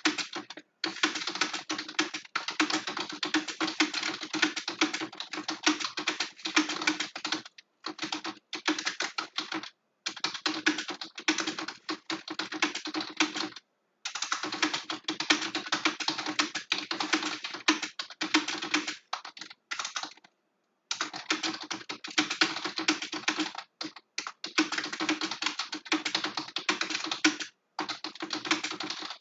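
Fast typing on a computer keyboard: long runs of rapid keystrokes broken by brief pauses every few seconds.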